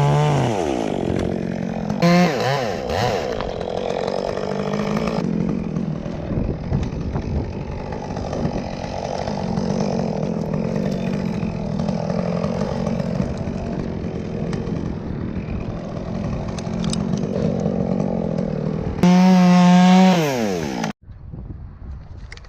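Chainsaw revving up and down in short bursts, then running steadily as it cuts through wood for most of the time, with a last rev before the sound stops abruptly near the end.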